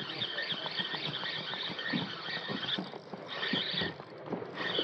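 Spinning reel being cranked fast on a jig retrieve, its gears giving a steady high-pitched whine that stops briefly twice near the end, with light knocks and handling noise underneath.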